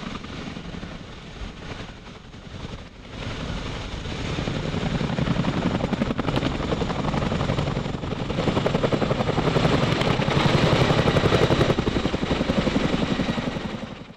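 Boeing CH-47 Chinook tandem-rotor helicopter taking off: turbine and rotor noise dips briefly, then builds louder from about three seconds in. A rapid, even blade slap is strongest in the second half, and the sound ends abruptly.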